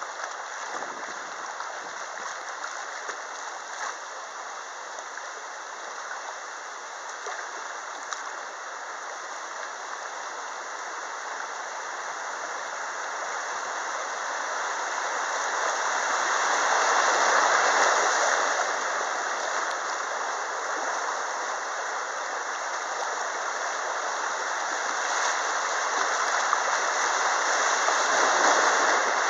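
Rushing river water pouring over riffles and small rapids, heard from a kayak running them. The rush swells about halfway through and again near the end, as the boat drops into foaming whitewater.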